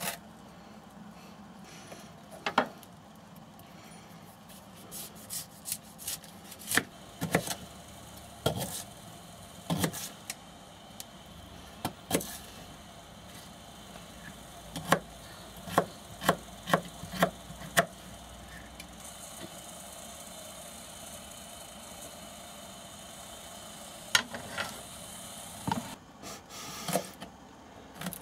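Kitchen knife chopping vegetables on a cutting board: sharp, irregular knocks, with a quick run of about six strokes near the middle.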